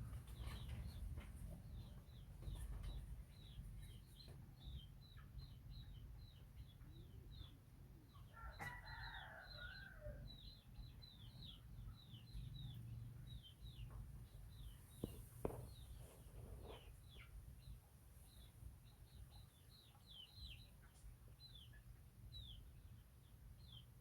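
Faint birds chirping: short high falling chirps about twice a second, with one longer, lower call about nine seconds in, over a low background hum.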